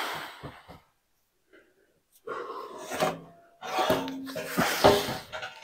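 A man breathing hard and grunting with strain in several bursts while heaving a heavy steel I-beam up overhead.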